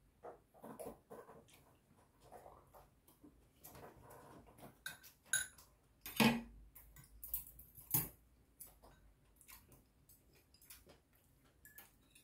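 Metal chopsticks and a spoon clicking and clinking against ceramic bowls while eating, with soft chewing in between; two louder clinks come past the middle.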